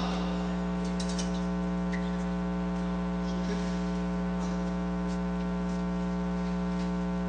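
Steady electrical hum with many overtones, holding at one pitch throughout, with a few faint clicks behind it.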